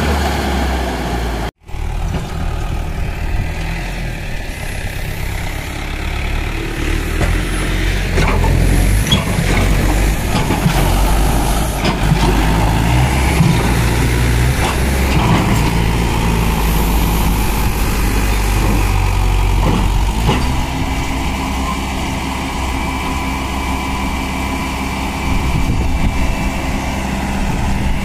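Swaraj 843 XM tractor's three-cylinder diesel engine working under load while it pulls a loaded tipping trolley over soil, its pitch rising and falling with the throttle. About two-thirds of the way through it settles to a steadier, higher note as it drives the hydraulics that raise the trolley bed.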